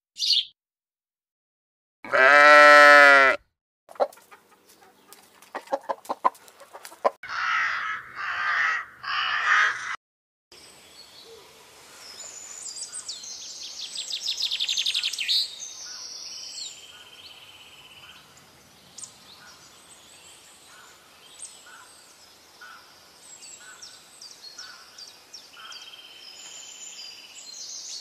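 A rooster crows once, loud and about a second and a half long, followed by a few light ticks and three short noisy calls. After that, small birds chirp and trill repeatedly over open-air background.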